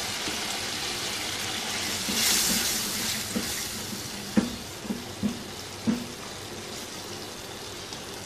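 Dal and chicken simmering in a frying pan just after chicken stock is added: a steady sizzling hiss that swells about two seconds in. It is followed by about five light knocks of the spatula against the pan as the mixture is stirred.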